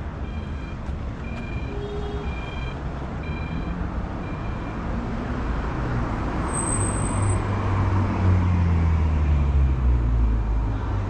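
Pedestrian crossing signal beeping at a steady pace of about one and a half short high beeps a second, fading out about halfway through. A car then drives past, getting louder, its engine note falling in pitch as it goes by.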